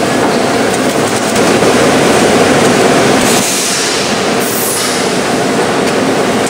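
Form-fill-seal packaging machine with a thermal transfer date coder running: loud, steady machine noise, with a hiss for about a second halfway through.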